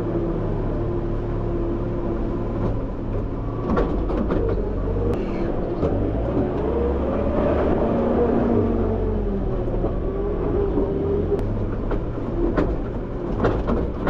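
JCB Loadall 531-70 telehandler running, heard from inside its cab while it loads muck with the bucket. Revs rise from about six seconds in and fall back a few seconds later, and there are a few sharp knocks.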